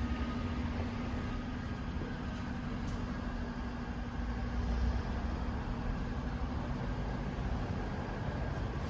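Suzuki GSX-S750's inline-four engine idling steadily.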